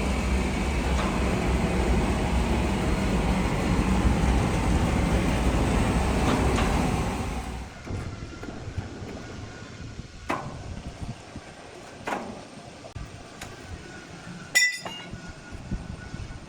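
Heavy machinery runs steadily with a low rumble, then winds down about seven seconds in. Afterwards there are a few scattered knocks and one sharp metallic clink.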